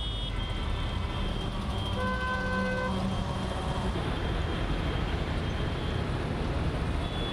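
Steady outdoor street noise with a vehicle horn sounding one steady note for about a second, about two seconds in.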